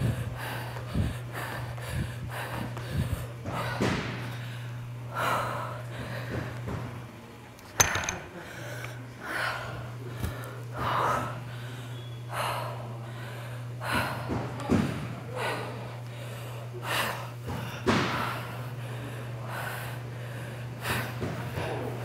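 Hard breathing of a woman exercising: sharp exhales and gasps every second or two. For the first few seconds her feet strike a plyo box about once a second, and a single sharp knock comes about eight seconds in. A steady low hum runs underneath.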